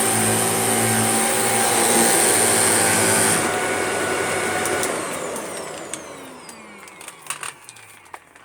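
Shark vacuum cleaner running with a high whine, then switched off about three seconds in, its motor winding down with a falling whine. It sounds a bit rough, which the owner takes as a sign that it could do with some TLC.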